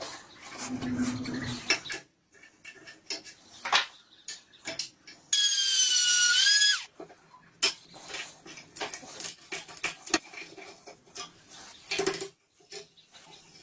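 A small rotary tool with a cutoff disc whines for about a second and a half near the middle, cutting into the head of a rusted, seized screw on a steel gun part; its pitch rises slightly, then drops as it stops. Around it are the clicks and scrapes of a bit driver and screwdriver working the rusted screw.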